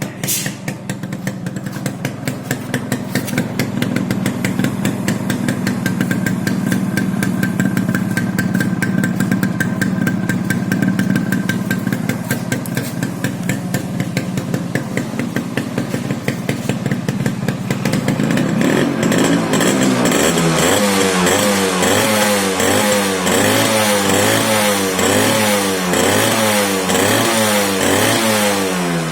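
Yamaha RX 100's stock single-cylinder two-stroke engine, factory-sealed and unmodified, running at a steady idle. From about twenty seconds in it is revved up and back down again and again, about once a second.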